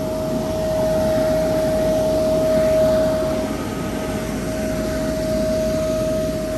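Electric inflatable blower running steadily, a constant whine over a rush of air, as it fills a commercial inflatable water slide.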